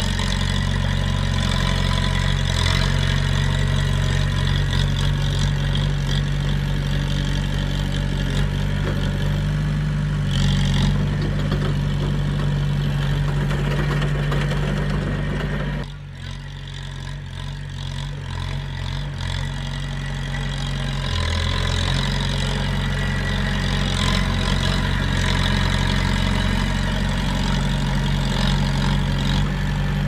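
Bulldozer's diesel engine running steadily, dropping off suddenly about halfway through and building back up over several seconds.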